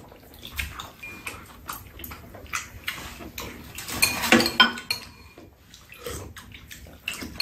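Metal spoons and chopsticks clicking and scraping against ceramic bowls during a meal, mixed with the wet sounds of eating noodles and broth. The clicks come irregularly, with a louder cluster a little past halfway.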